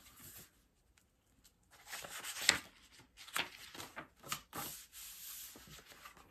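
Paper pages of a Little Golden Book picture book being rustled and flipped by hand: irregular rubbing and page noise with small clicks, the loudest a sharp snap about two and a half seconds in.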